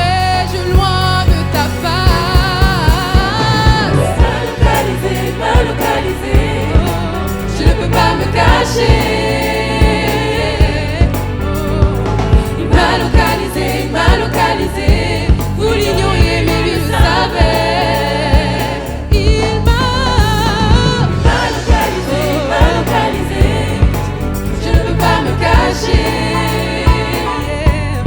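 Gospel choir singing with a band, over a steady beat of sharp percussive hits.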